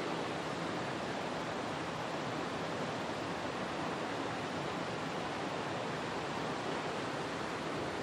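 Steady rush of water from a small waterfall and the stream below it, an even, unbroken noise.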